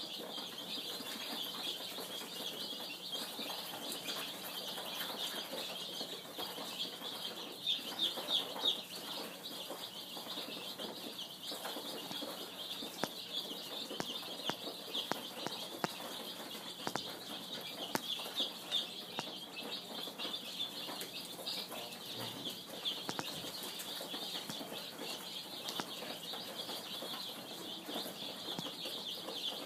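A brood of baby birds cheeping without pause, many high, thin peeps overlapping into a dense chorus, with a few soft clicks and rustles among them.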